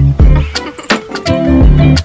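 Background music with a strong beat and a heavy bass line.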